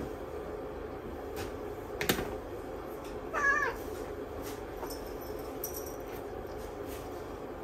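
A cat gives one short meow, wavering and falling at the end, about three and a half seconds in. A sharp knock, the loudest sound here, comes just over a second before it, over a steady low hum.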